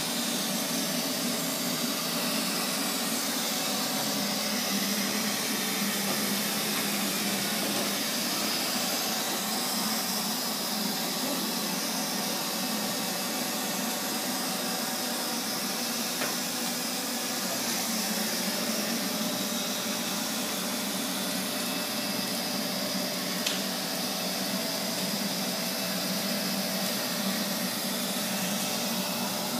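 Neato XV-25 robot vacuum running, a steady hiss with a low hum from its motor and brush. A single small click about twenty-three seconds in.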